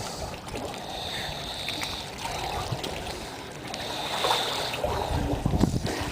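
Snoring from someone asleep in a pool: a hissing breath about every three seconds, over the trickle and lap of pool water.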